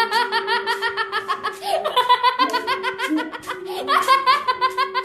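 High-pitched cackling laughter of the kuntilanak ghost: fast runs of laugh syllables, each run starting with a rising squeal, over a steady held tone.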